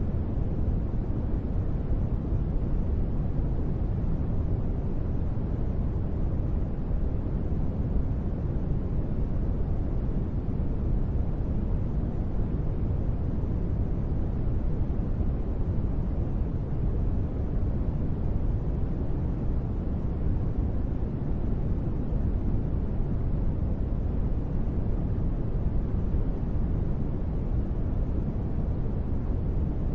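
Steady, deep rushing white noise, billed as gentle rain, running evenly with no separate drops or thunder. It is heavy in the low end and has little hiss.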